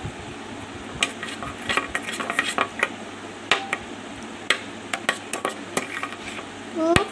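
A spoon stirring a milk, cream and sugar mixture in a bowl, with irregular clinks and taps of the spoon against the bowl.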